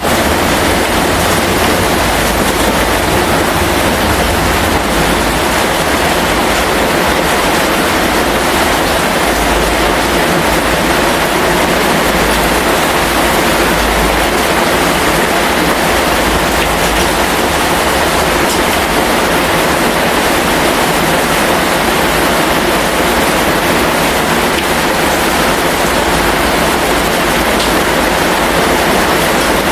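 Heavy rain falling steadily as an even, continuous hiss, with an uneven low rumble underneath.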